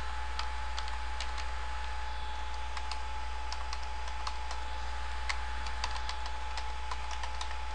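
Typing on a computer keyboard: irregular, scattered keystrokes as a web address is entered, over a steady electrical hum with a faint constant tone.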